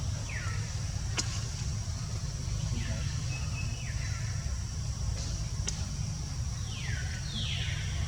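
Baby monkey giving several short high squeaks, each falling in pitch, the last two close together near the end, over a steady low rumble. There are two sharp clicks, one about a second in and one near the middle.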